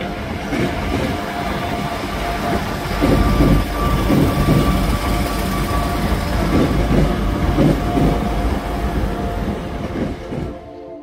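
Transport for Wales Class 175 diesel multiple unit passing close by, its engines humming steadily under the clatter of its wheels on the track. The sound is loudest in the middle and cuts off suddenly near the end.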